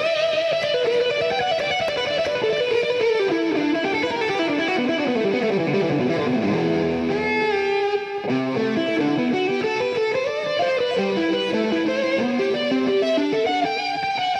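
Background music: a guitar playing fast runs of notes that sweep downward over a few seconds, then climb again after a brief break about eight seconds in.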